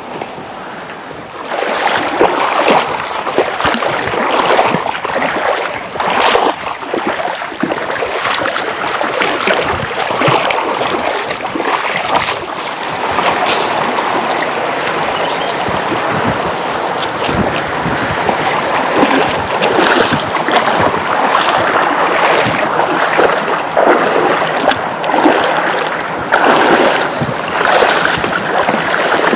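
River water rushing and splashing, loud and close, becoming suddenly louder about a second and a half in.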